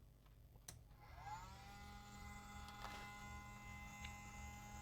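Hot-air rework station switched on with a click, its blower motor spinning up with a rising whine that settles into a steady whine and hum, ready to heat the board for desoldering MOSFETs.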